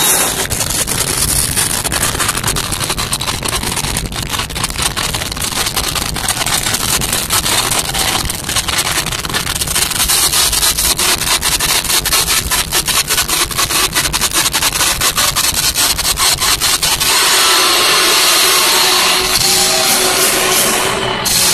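Live rock band playing loudly in an arena, picked up by a phone microphone so overloaded that it comes out as a harsh, grinding noise over a pounding beat. About seventeen seconds in the beat stops and a steadier, brighter wash with a held note takes over.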